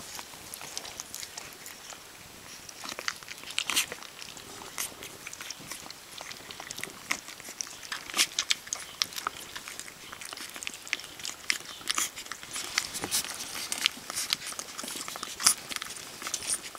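German Pinscher puppy eating soft food from a bowl: irregular smacking and chewing clicks from its mouth.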